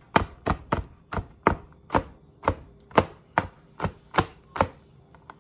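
Chef's knife chopping garlic on a plastic cutting board: about a dozen sharp knocks, roughly three a second, that stop shortly before the end.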